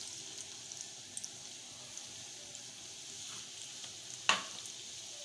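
Breaded chicken-cheese balls deep-frying in hot oil: a steady sizzle with small crackles. A single sharp knock about four seconds in.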